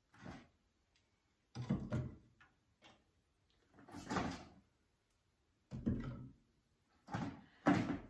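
Thin wooden slats of kindling being laid into a fireplace firebox, knocking and clattering against each other in a series of short separate clatters, the loudest near the end.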